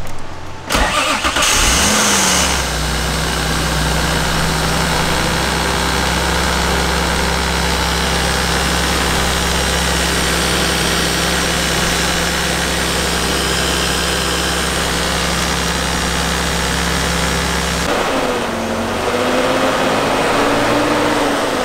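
BMW E36 M3's straight-six engine starting about a second in, revving briefly, then settling into a steady idle. Near the end the steady note gives way to a slow rise and fall in pitch.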